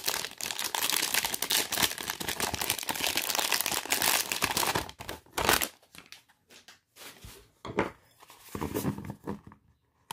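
Crinkly plastic blind bag crinkling and tearing steadily for about five seconds as it is opened and emptied. After that come scattered, softer rustles and crackles of a clear plastic wrapper being handled.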